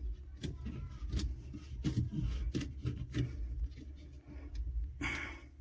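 Light clicks, taps and scrapes of faucet parts being handled and unscrewed by hand, with a short rustle about five seconds in.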